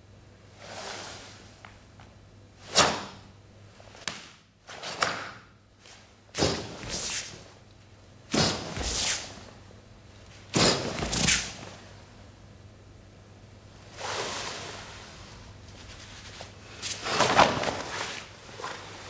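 A karate gi swishing and snapping with the performer's strikes and blocks, in about nine irregular bursts. The sharpest, loudest snap comes about three seconds in.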